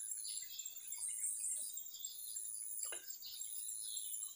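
Birds chirping over an insect's very high buzzing that comes and goes in pulses about once a second.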